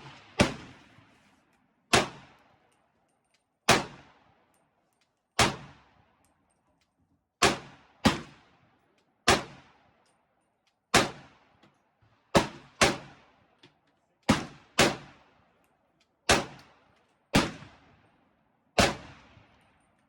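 Semi-automatic fire from a .300 Blackout AR-15 pistol: about fifteen shots at an uneven pace, some in quick pairs, each trailing off in a short echo.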